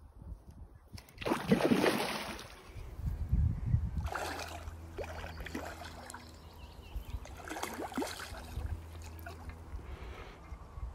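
Irregular splashing and sloshing of water, loudest about a second and a half in, over a steady low hum.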